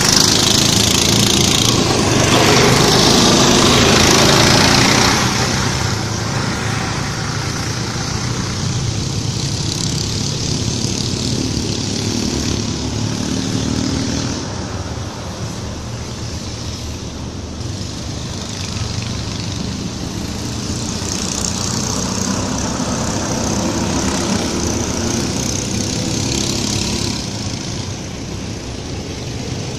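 Go-kart engines running on a circuit. A kart passes close in the first few seconds and is loudest then. The engine sound then falls back to a steadier, more distant running, swells again about two-thirds of the way through, and drops near the end.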